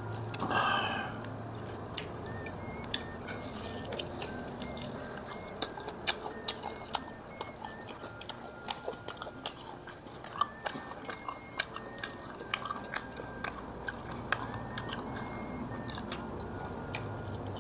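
A person biting and chewing tough air-dried beef on the bone close to the microphone, with many sharp crunchy clicks at an irregular pace. A brief louder sound comes about half a second in.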